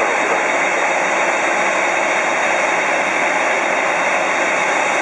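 Boeing 747-8F freighter taxiing, its four GEnx-2B turbofans running at taxi power: a steady, even jet noise with no break.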